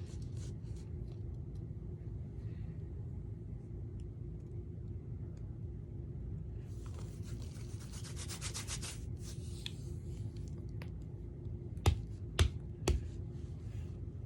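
Objects being handled and put away: scattered light clicks, a couple of seconds of quick rubbing and scraping about halfway through, then three sharp knocks near the end, over a steady low hum.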